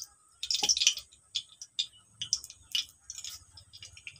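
Hot mustard oil crackling in a wok with irregular sharp pops and spits: the oil left from frying fish, topped up with a little fresh oil.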